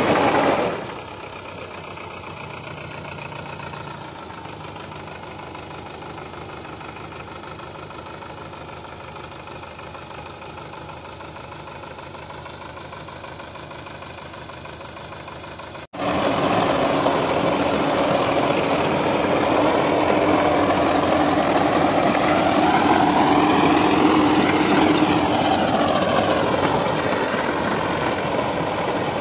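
Sonalika DI 750 tractor's diesel engine working under load as it pulls a rotavator through dry soil. It is quieter for the first half, then jumps louder at an abrupt cut about halfway through, and its pitch wavers up and down near the end.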